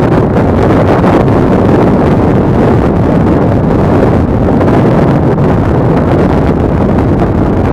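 Heavy wind buffeting on the microphone of a motorbike ridden along a muddy off-road track, with the bike's engine running beneath it.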